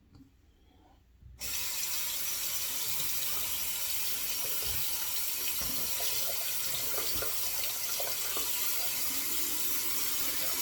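Bathroom tap turned on about a second and a half in, water running steadily into the sink, with a few faint knocks.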